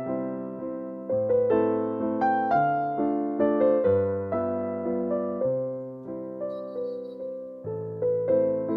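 Background music: a piano melody of struck notes over sustained bass notes, each note decaying before the next.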